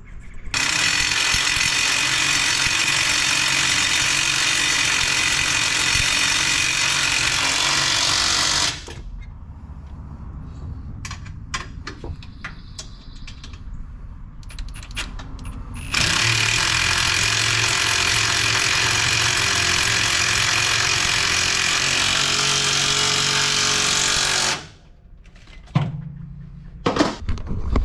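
Arc welding steel brackets: two long, steady crackling welds of about eight seconds each, with a few sharp clicks and taps in the pause between them.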